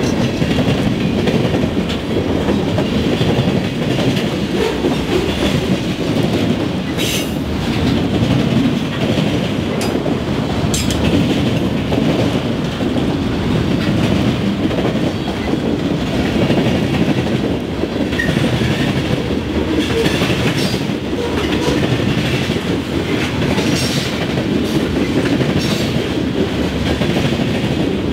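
Freight train cars rolling past: a steady rumble of steel wheels on the rails with clickety-clack over the joints, and a couple of sharp clanks about 7 and 11 seconds in.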